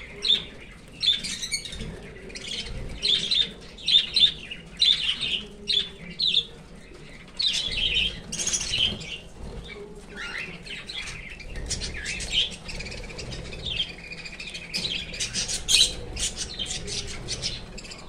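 A flock of cockatiels calling: repeated short squawks and chirps, with a rising call about ten seconds in and a longer held whistle a little later.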